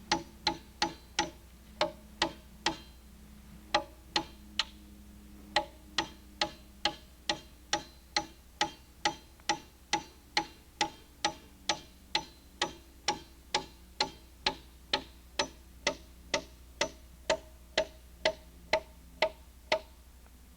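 Steady, rhythmic hammer blows on metal, about two to three a second, each with a short ringing tone. The blows pause briefly twice, about three and five seconds in.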